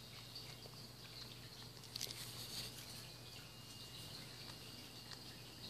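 Cat chewing raw meat from a bowl: faint, soft chewing and smacking clicks, with one louder click about two seconds in.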